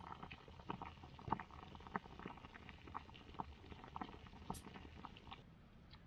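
Pot of food on a wood fire at a rolling boil, bubbling with a stream of small irregular pops. The bubbling cuts off abruptly a little before the end.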